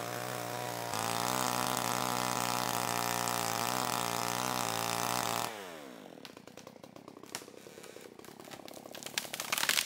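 Supmix 6250 62cc two-stroke chainsaw running hard through the trunk of a dead hemlock, its note steady under load. About five and a half seconds in the throttle is let off and the engine note falls away. This is followed by cracking and a crash of branches near the end as the tree comes down.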